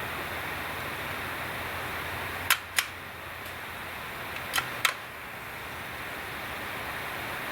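.22LR rifle shots: four sharp cracks in two pairs, each pair about a third of a second apart, the pairs two seconds apart.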